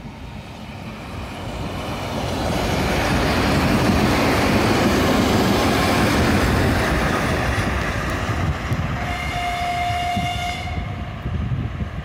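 2TE116 twin-section diesel locomotive passing close by: the running of its 16-cylinder diesel engines and its wheels on the rails grows louder, peaks and then eases as it goes past. About nine seconds in, a steady high-pitched tone sounds for under two seconds.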